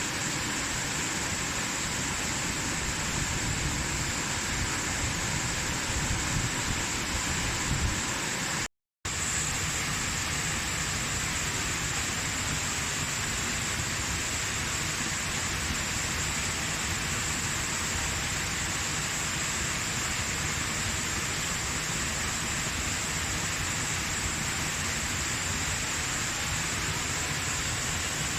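Waterfall: a steady, even rush of falling water, with a brief complete dropout about nine seconds in where the recording cuts. Before the cut there is more low rumble.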